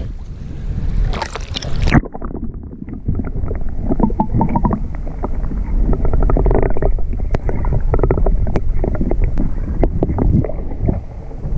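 Wind and water noise at the lake surface. About two seconds in, the GoPro goes under water and the sound turns sharply muffled: dull underwater water movement with scattered small clicks and knocks.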